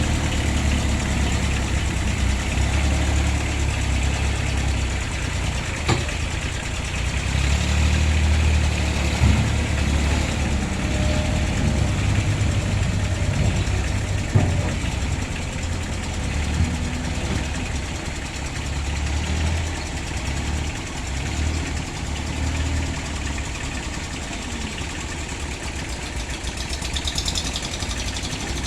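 Engines of small Kubota-type diesel haulers idling steadily in a queue, with a couple of sharp knocks about six and fourteen seconds in.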